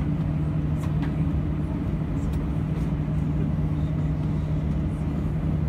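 Steady low drone inside an airliner's cabin while the aircraft holds on the ground with its engines and air systems running, a constant low hum over a rumble.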